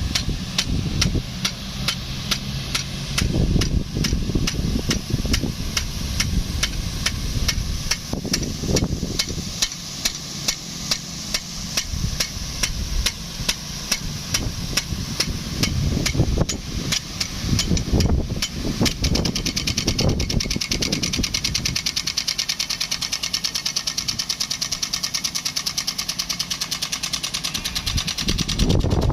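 DN-50 big gun rain sprinkler's impact arm clacking rapidly and regularly against the nozzle as the gun sprays and turns, over the rush of the water jet and the running pump engine. The clacks come closer together in the second half.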